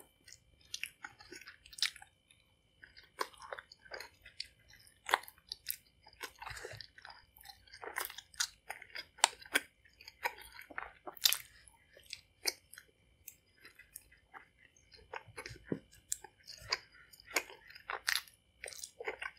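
A person chewing a fruit roll-up strip, with wet, irregular mouth clicks and smacks as the chewy candy is worked between the teeth.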